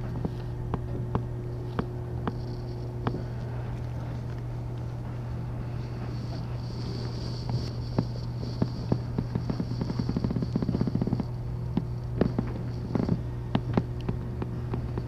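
Panasonic massage chair running: a steady motor hum with scattered clicks and knocks from its mechanism, a faint high whine in the middle, and a stretch of rapid tapping about two-thirds of the way through.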